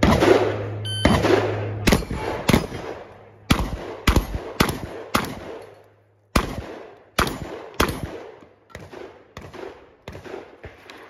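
Beretta 1301 semi-automatic 12-gauge shotgun fired in quick strings of shots, about a dozen in all, with a pause of about a second near the middle; the last several shots are quieter. Faint ringing tones about a second in.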